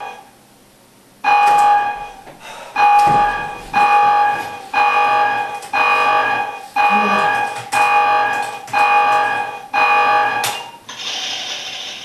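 Computer countdown-timer alarm beeping: a loud electronic tone repeating about once a second, ten times, as the timer runs down its last seconds. Near the end a short hissing clatter as the counter resets to 108 minutes.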